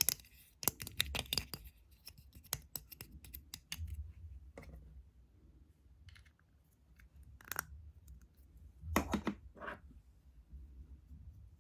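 Close-miked ASMR tapping and scratching by fingertips and nails: a quick run of sharp taps over the first few seconds, then scattered single taps and a couple of short scratchy bursts about two-thirds of the way through.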